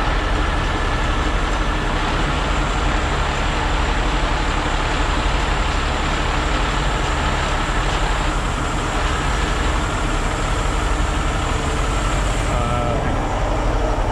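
Heavy diesel tow-truck engines running steadily in a constant drone.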